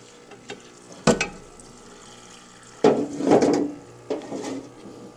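Degreaser splashing and pouring in a parts-washer tank as an Ironhead engine case half is washed and tipped up to drain. There is a sharp knock about a second in and a louder spell of splashing and pouring about three seconds in.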